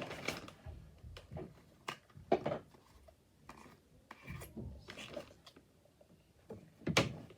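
Hands handling small objects on a table: scattered clicks, taps and rubbing, with the sharpest knocks about two seconds in and near the end.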